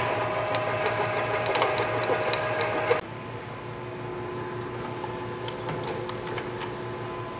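Manual metal lathe running while a spade drill cuts into solid bar stock, a steady machine sound with several fixed tones; about three seconds in it drops suddenly to a quieter steady hum, with scattered sharp clicks as the headstock speed selector dial is turned.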